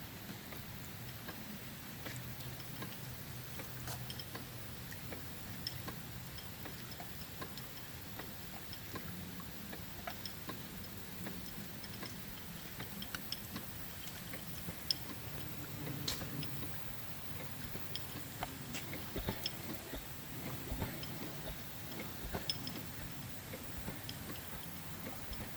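Large model steam engine running steam-fed from a propane-fired boiler: light clicking ticks over a low steady hum.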